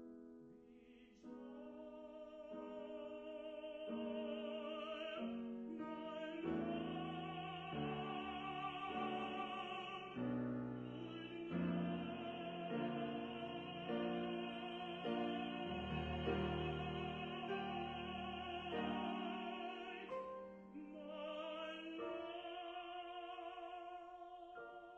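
An art song performed by a classically trained singer with wide vibrato, accompanied by piano. The piano plays alone at first, and the voice enters about a second in.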